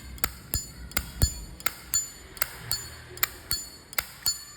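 Zippo lighter lid flicked open and snapped shut over and over. It gives a run of sharp metallic clacks, about three a second, each with a short high ring, the lighter's prized clean sound.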